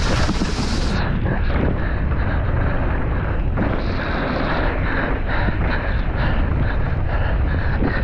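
Wind buffeting the microphone of a camera on a mountain bike being ridden fast down a dirt trail. Under it is a steady rumble and a run of quick knocks and rattles from the knobby tyres and bike over rough ground.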